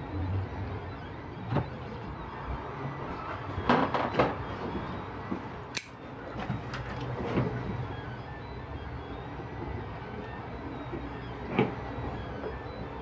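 A knife blade prying at the seam of a plastic smart-plug housing: irregular scrapes, creaks and sharp clicks, thickest in the middle, with one last click near the end.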